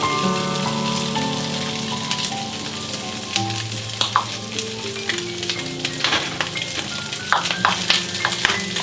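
Leftover rice and meat frying in a pan with a steady sizzle, stirred with frequent sharp scraping clicks that grow busier after the first few seconds. Slow background music with held notes plays underneath.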